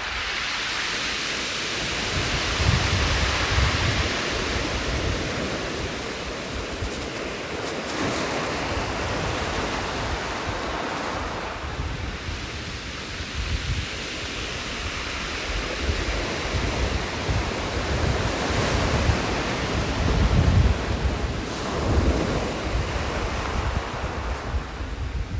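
Ocean waves breaking on a shore: a continuous surf wash that swells and fades every few seconds as each wave comes in and draws back. Low rumbling buffets of wind on the microphone run underneath.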